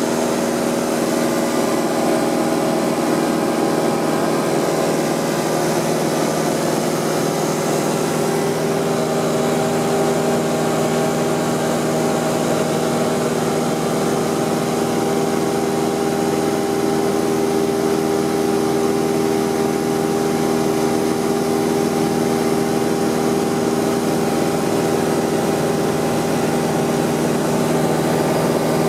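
Piston engine and propeller of a small single-engine plane droning steadily in flight, heard inside the cabin with a hiss of rushing air.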